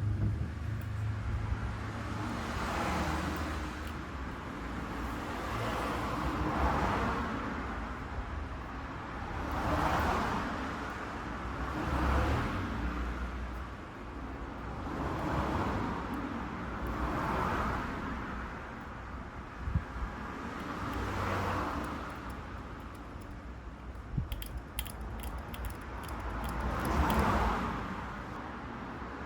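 Road traffic passing, a string of vehicles swelling and fading every two or three seconds, with a few light clicks in the second half.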